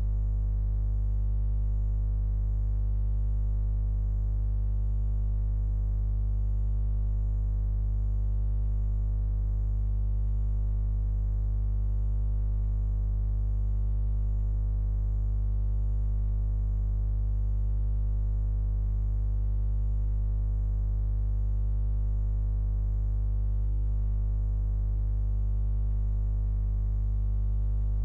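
Steady low buzzing hum with many evenly spaced overtones, unchanging in pitch and level.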